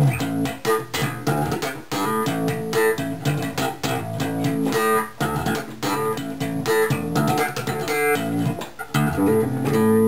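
Electric bass guitar played fingerstyle: a busy line of plucked notes, one after another.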